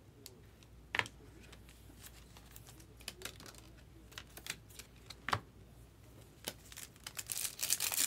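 Scattered light clicks and taps of trading cards and clear plastic card holders being handled, two of them louder. Near the end, a foil trading-card pack crinkles as it is torn open.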